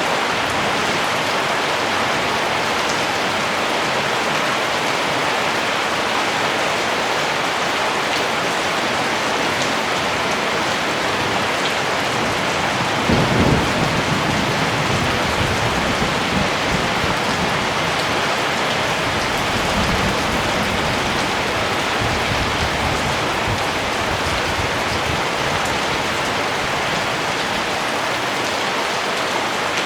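Steady, heavy rain falling, with a low rumble of thunder about halfway through that fades and returns faintly a few times.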